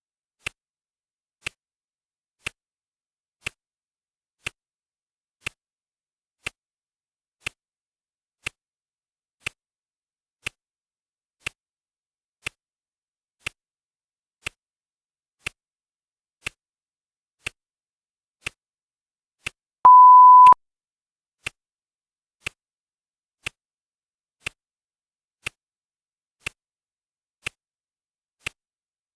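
Clock ticking, one tick a second, with a single steady electronic beep lasting under a second about two-thirds of the way through: the timer's signal that another minute has passed.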